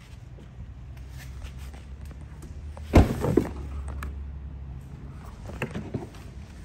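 A car door shut about three seconds in: one heavy thud with a smaller knock right after it. A few lighter knocks follow later.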